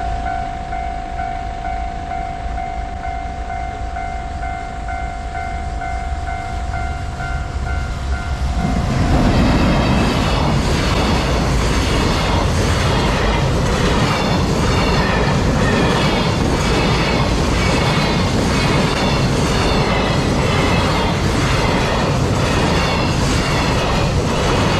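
Japanese level-crossing alarm ringing with a steady, pulsing tone. About nine seconds in, a freight train hauled by a JR Freight EF210 electric locomotive arrives and runs through the crossing, louder, its wheels clacking in a steady rhythm that drowns out the alarm.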